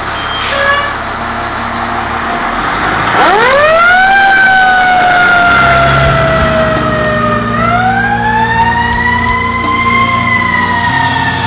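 Fire engine siren winding up about three seconds in: a quick rise to a high wail, a slow fall, then a second rise and another slow fall. Under it runs the low, steady rumble of the truck's engine.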